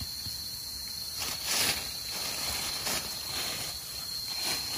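Crickets or similar insects droning steadily on one high tone, with four short rustling scrapes of hands and a blade digging through dry leaf litter and soil, the loudest about one and a half seconds in.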